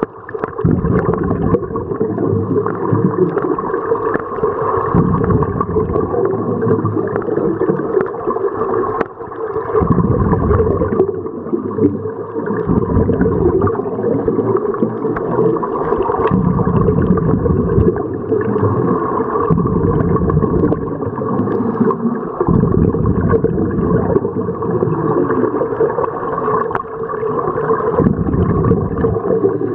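Muffled underwater sound of several scuba divers breathing through their regulators, with gurgling surges of exhaled bubbles every few seconds over a steady rumble.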